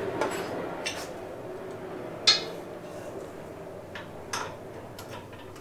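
Metal parts and tools being handled, giving a few sharp clinks and knocks, the loudest a clank a little over two seconds in.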